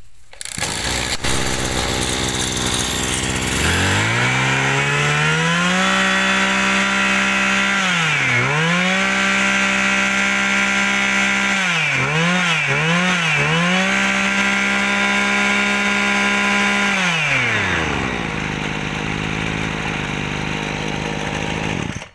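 Small two-stroke brush cutter engine revved from idle to full throttle about 4 s in and held high, with one dip and then three quick throttle blips. It drops back to idle near the end.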